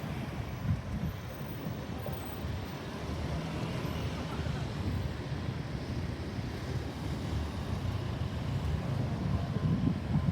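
Road traffic noise: vehicle engines and tyres on a road, growing louder near the end.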